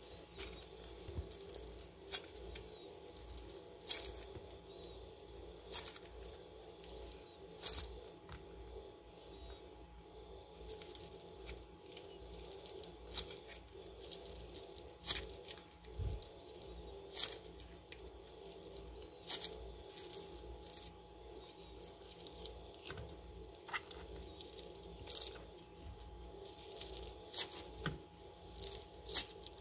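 Foam-bead slime being squeezed and kneaded by hand, crunching and crackling in irregular pops as the beads are pressed and the slime tears and stretches.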